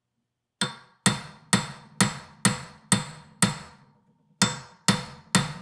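Hand hammer striking a metal bushing driver, about two blows a second, each with a short metallic ring, with a pause of about a second past the middle. The blows are driving a new kingpin bushing into an early Ford (1928–1948) spindle held in a vise.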